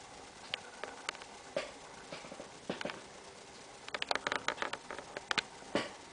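Close handling noise on a compact camera: irregular light clicks and taps, a few scattered at first and coming thick and fast from about four seconds in, as a tarantula crawls against the hand and camera.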